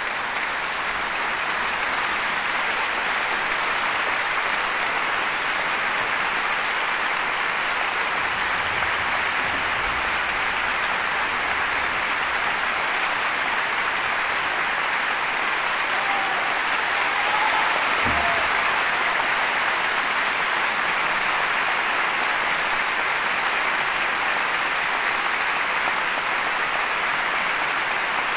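Concert-hall audience applauding: dense, steady clapping that comes up to full strength at the start and holds evenly throughout.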